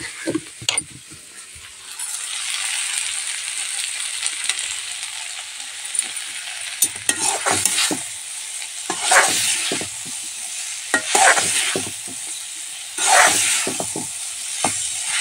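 Masala paste with tomato frying in hot oil in a pan, sizzling steadily as it is fried down, with a spatula stirring and scraping through it every couple of seconds.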